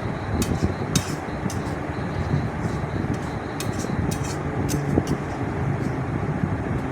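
Masala paste with a little water frying and bubbling in a kadai, with a spatula clicking and scraping against the pan a dozen or so times as it is stirred.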